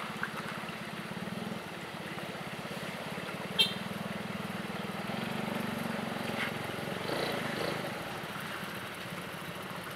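A vehicle engine runs steadily at low speed, with a single sharp click a little over three and a half seconds in.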